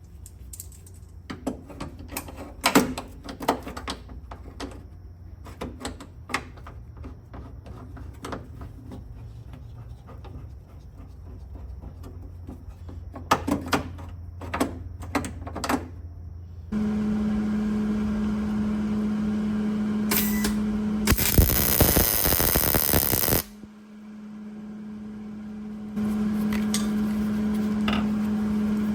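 Scattered metal clicks and taps from parts being handled, then a welder humming steadily, with a brief crackle and a longer crackling weld burst a little past the middle: plug welds filling drilled-out rivet holes in sheet steel against a brass backing plate.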